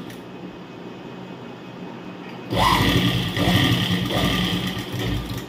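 Sewing machine running for about three seconds, starting about two and a half seconds in, as it stitches through the folded fabric strip.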